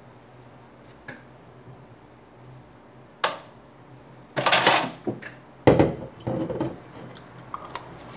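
Several clinks and clatters of hard objects being handled, one sharp clink about three seconds in and louder clattering around four and a half and six seconds in, over a low steady hum.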